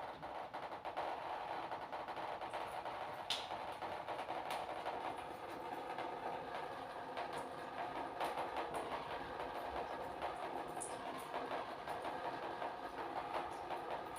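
Water from a neti pot trickling and splashing steadily as it runs out of the nose during nasal rinsing.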